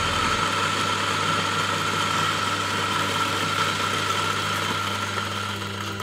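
Eureka single-dose coffee grinder's motor running, grinding a 20 g dose of beans into the dosing cup, with a steady whine over the crunch of the grinding. The level eases a little near the end as the dose runs through.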